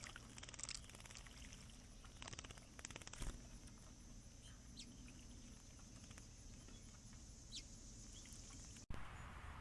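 Quiet outdoor ambience: a steady high insect drone, two short bursts of fine pattering about half a second in and between two and three seconds in, and two faint short bird chirps near the middle and towards the end.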